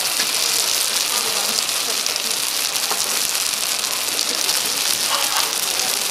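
Triangle dumplings deep-frying in hot oil: a steady, dense sizzle full of fine crackles.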